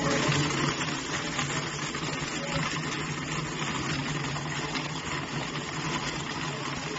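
Motor of a NewFeiMall Cassius 300 W blender running steadily, its blades churning a jug of liquid, with a constant hum under the noise of the liquid.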